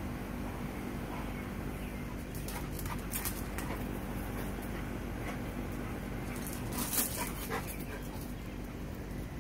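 Dogs playing, with a few short barks in two clusters, about three seconds in and again about seven seconds in, the loudest near seven seconds, over a steady low hum.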